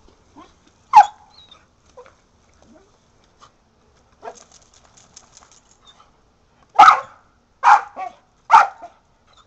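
Kelpie-mix dog barking at the spray of a lawn sprinkler: one sharp bark about a second in, then three barks in quick succession near the end.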